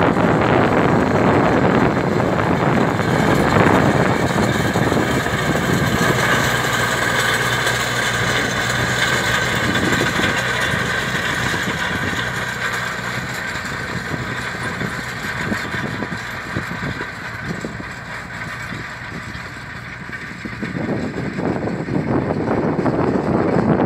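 Tractor engine running steadily as it pulls a Güttler Greenmaster prism roller and harrow across a field, growing fainter as it moves away.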